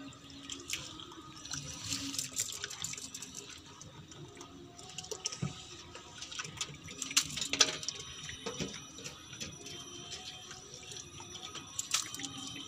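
Wheat grain being washed in a plastic tub of water: irregular splashing and sloshing as the soaked grain is stirred by hand and with a wooden stick, with a few sharper splashes about seven seconds in and near the end.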